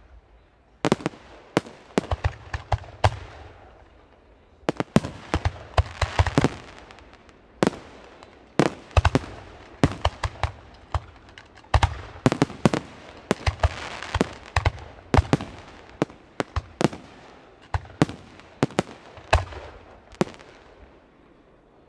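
Weco professional fireworks display: aerial shells bursting in a fast, irregular run of sharp bangs. The bangs come thickest in the middle and thin out, dying away near the end.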